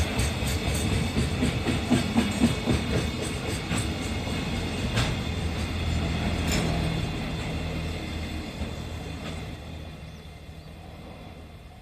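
Freight train wagons rolling past over a level crossing, wheels clicking over the rail joints in a dense rumble. The sound fades away in the last few seconds as the end of the train goes by.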